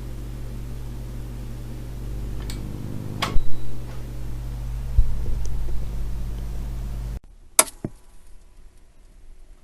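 Old analog TV noise: steady static with a low hum and a few sharp crackles, cutting off suddenly about seven seconds in, then one sharp click over faint hiss.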